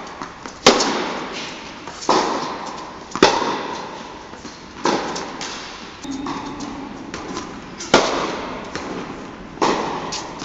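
Tennis ball struck back and forth in a baseline rally in a large indoor tennis hall: sharp racket hits and ball bounces every one to two seconds, each ringing on in the hall's echo.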